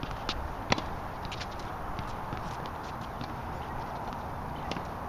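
Tennis ball being struck by racket and bouncing on a hard court: a few sharp pops, the loudest under a second in, then scattered fainter ones over steady outdoor background noise.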